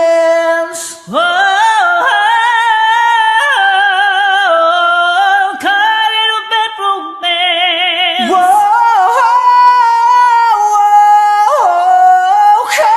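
Unaccompanied singing voice holding long notes and sliding between pitches, with strong vibrato on a note about halfway through, sung without clear words.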